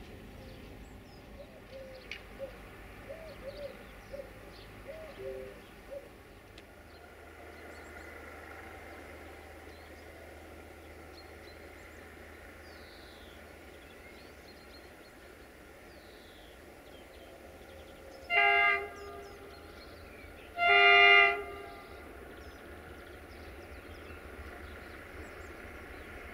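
Horn of a 060-DA (ST43) Sulzer diesel-electric locomotive hauling a freight train, sounded twice: a short blast, then a longer, louder one about two seconds later. Under it the locomotive's diesel engine rumbles low and steady as the train approaches. Birds chirp during the first few seconds.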